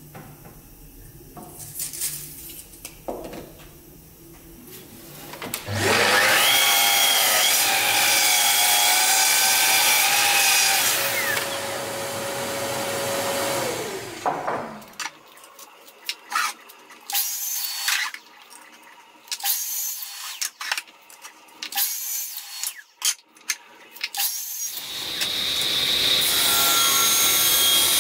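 A sliding mitre saw's motor spins up with a high whine, runs through a crosscut in an ash board, and winds down. A run of short knocks and clatter follows, and near the end a table saw starts up and runs steadily.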